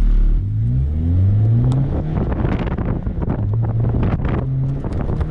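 Honda Fit's four-cylinder engine accelerating hard on an autocross run. It rises in pitch through the first second or so, drops back about three seconds in, then holds steady.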